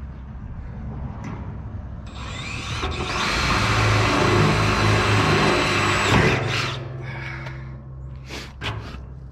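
Power drill spinning up about two seconds in, running hard for about three seconds with a high whine, then stopping abruptly. A few short knocks and clicks come before and after it.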